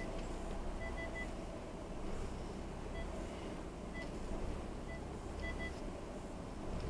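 Car's parking sensor giving short high beeps at uneven intervals (three quick ones about a second in, single beeps a little later, a pair near the end) while the car reverses in a parking lot, over the low rumble of its engine.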